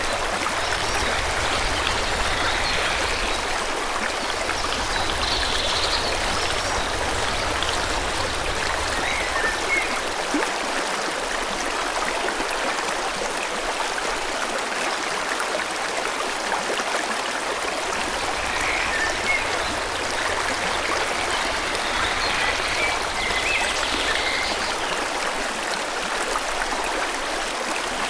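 A forest stream flowing steadily over rocks, with scattered short bird chirps above the rushing water every few seconds.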